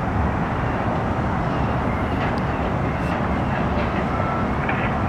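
Steady rumble of vehicle engines and traffic, with a few faint ticks and thin high tones over it.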